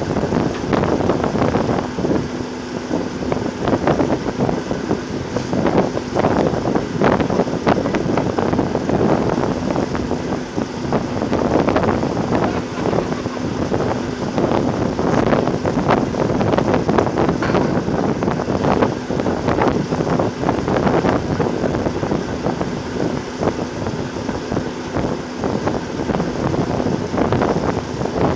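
Oil rig machinery running loudly and steadily, with frequent metal knocks and clanks on the rig floor and a faint steady hum underneath.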